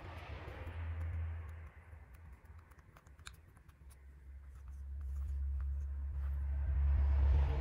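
Small pieces of paper being handled and slid on a tabletop: soft swishes and light clicks, over a low rumble that swells near the end.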